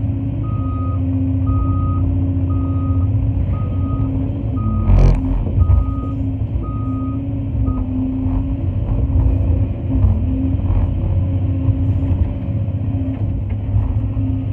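An off-road haul truck's backup alarm beeps about once a second over the steady drone of the Cat 349 excavator's diesel engine, then stops about eight seconds in. A sharp clunk comes about five seconds in.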